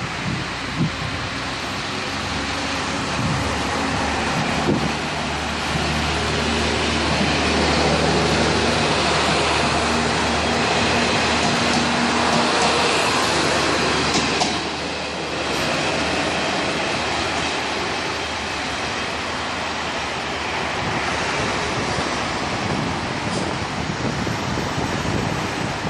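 A Kantō Railway KiHa 0-series diesel railcar moving along the platform and passing close by, its diesel engine humming steadily under a wash of wheel and rail noise. The sound swells as it passes, drops suddenly about halfway through, and then carries on at a lower level as the railcar moves off.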